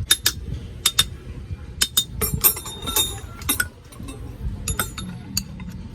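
Metal tools and parts clinking and tapping in a dozen or so quick, irregular strikes, one ringing briefly.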